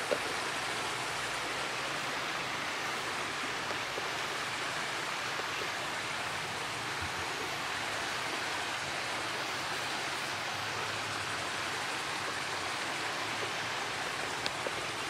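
Steady rush of flowing river water, an even hiss that holds at one level throughout.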